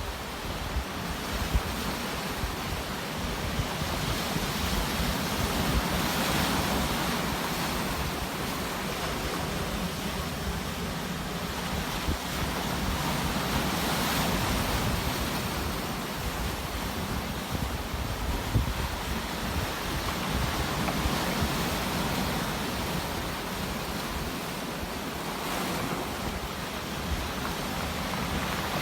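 Sea waves breaking and washing ashore, the surf swelling and falling back about every seven or eight seconds, with wind buffeting the microphone.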